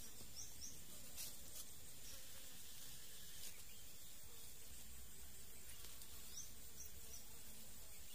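Forest ambience: a steady, high-pitched insect drone, with a few short rising bird chirps near the start and again near the end, and a few faint clicks.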